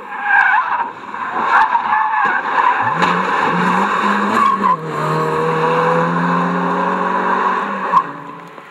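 Competition car's tyres skidding and squealing, with the engine revving up about three seconds in and holding high revs. The sound drops away near the end.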